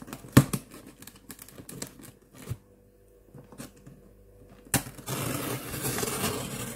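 Cardboard parcel being handled, with scattered taps and clicks and one sharp knock just under half a second in; from about five seconds in, a continuous scratchy tearing as a small metal tool is drawn along the packing tape over the box's centre seam, slitting it open.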